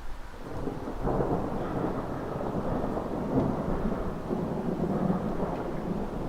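Thunder rumbling: a roll that swells up about a second in and carries on as a long, uneven rumble.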